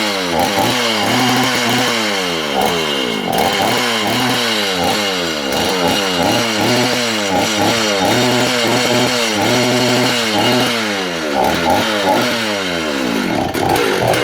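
Vintage Husqvarna Rancher 61 two-stroke chainsaw powerhead running, its throttle blipped over and over so the pitch keeps rising and falling back. It doesn't rev out perfectly: the saw needs tweaking.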